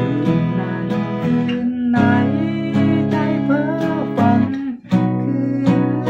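Steel-string acoustic guitar strummed with a pick in a down-and-up rhythm, playing barre chords with each chord held for a full bar. The chord changes just before five seconds in.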